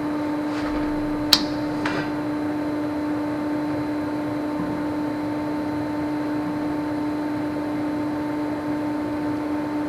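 Steady machine hum with a low pitched tone, broken by a sharp click about a second in and a fainter one just after.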